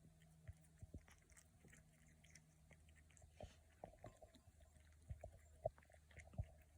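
Kitten chewing green peas: faint, irregular mouth clicks and smacks, a few louder ones in the second half.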